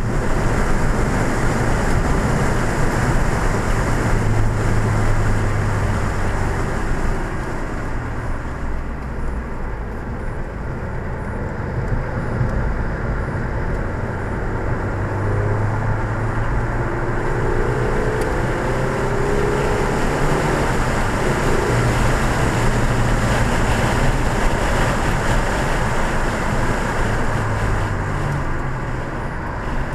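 2014 Ford Fiesta ST's turbocharged 1.6-litre four-cylinder running hard at track speed, heard from inside the cabin along with tyre and wind noise. The engine note rises and falls as the car accelerates and eases off, a little quieter for a few seconds about a third of the way in.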